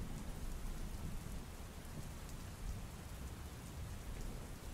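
Rain sound effect of steady rainfall, with a low rumble of thunder underneath.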